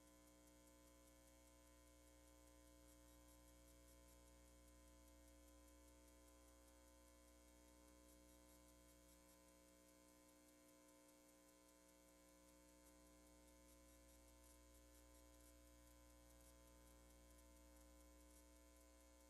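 Near silence: only a faint steady electrical hum.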